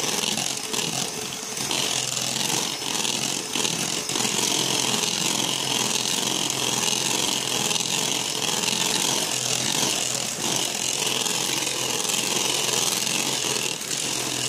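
Electric hand mixer running steadily, its beaters whisking egg-and-sugar sponge cake batter in a plastic bowl.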